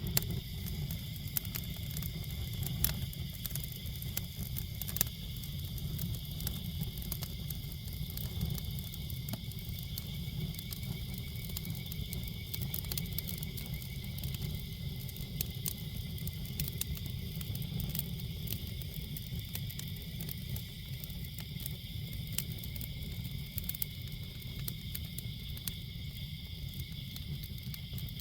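Wood campfire crackling: frequent sharp pops and snaps over a steady low rumble and a steady high-pitched hum.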